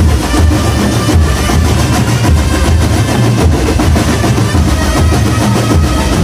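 Marching drumband playing loudly: bass drums and snare drums keep a steady driving beat under sustained melody notes.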